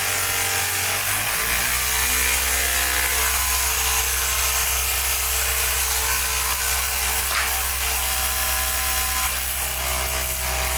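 Small electric motors of a 1/14 scale metal RC road roller running steadily: the drum's vibration motor buzzing over the hydraulic oil pump, the low hum dropping to a lower pitch about a second in as the vibration takes hold.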